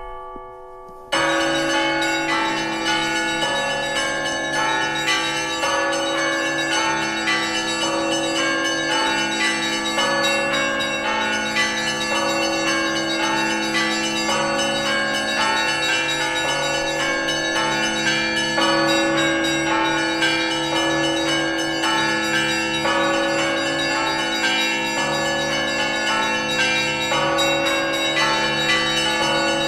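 Russian Orthodox monastery bells ringing together in a festive Epiphany peal. Many smaller bells are struck in quick, repeated patterns over the long, humming tones of the larger bells. The ringing starts about a second in.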